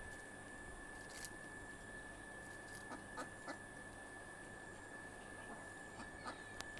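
Domestic ducks giving a few faint, short quacks, a cluster of three about three seconds in and another near the end, over a steady high-pitched whine.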